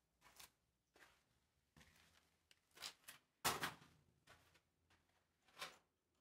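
Faint footsteps scuffing on a gritty concrete floor, about seven uneven steps, the loudest about halfway through.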